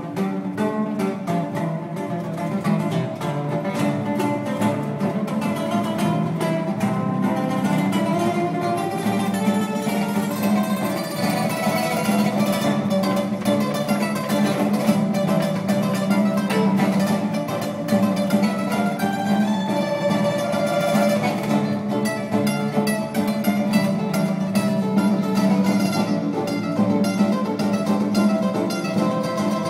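Solo cutaway acoustic-electric guitar played fingerstyle, with a cable running to a pedal: a continuous piece of fast runs of plucked notes over a steady bass line. The picking grows dense and rapid again in the last third.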